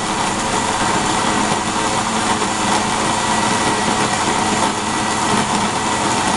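Electric blender motor running steadily at a constant pitch, grinding the ingredients.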